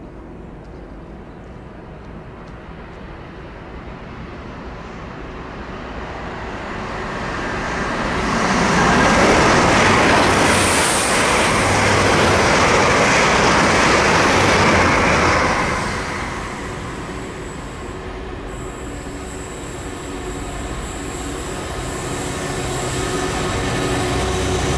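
A train passing on the line: the rumble and wheel noise builds over the first several seconds, stays loud for about seven seconds, then drops away and begins to rise again near the end.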